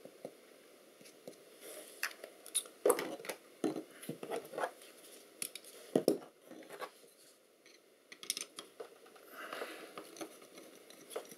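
Hands handling the metal sensor housing: irregular scratching and rustling with a few sharp knocks, as a witness mark is put on the back plate and the unit is gripped.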